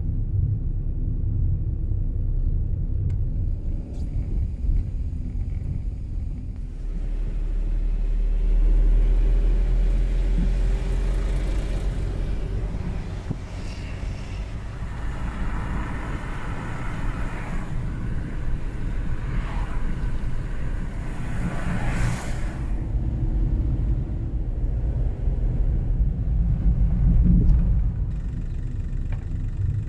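Car driving, heard from inside the cabin: a steady low engine and road rumble, with a louder rushing stretch of tyre and passing-traffic noise in the middle.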